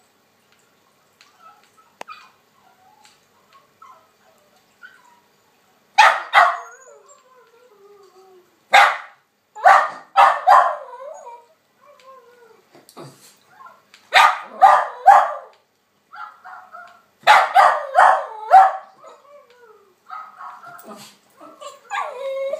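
West Highland white terrier barking in four bursts of two to four barks each, starting about six seconds in, with quieter whining near the end.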